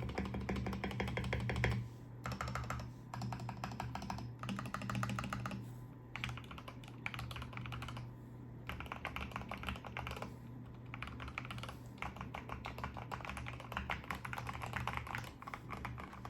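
Fast typing on a HOMOO KF068 mechanical keyboard with lubed Gateron Ink Black V2 linear switches, Akko OSA double-shot PBT keycaps, tape, foam and Holee-modded stabilizers. The keystrokes come in quick runs with short pauses between them, over a steady low hum.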